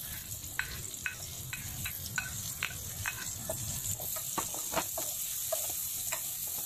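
Sliced onions sizzling in hot oil over browned garlic in a non-stick pot, with frequent short taps and scrapes of a spatula as the onions are pushed in from a plate and stirred.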